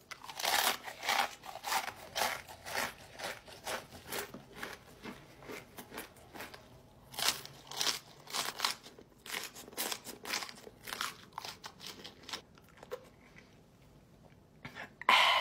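Close, loud crunching and chewing of a big mouthful of Blue Takis rolled tortilla chips: a quick run of sharp crunches, several a second, that thins out and stops about twelve seconds in. Partway through, whole raw green chili peppers are bitten and chewed as well.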